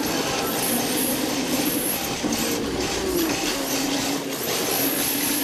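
Onboard sound of a rear-wheel-drive RC drift car: the electric motor and drivetrain whine, cutting in and out and sliding up and down in pitch with the throttle. Under it runs a steady hiss of the hard drift tyres sliding on the smooth floor.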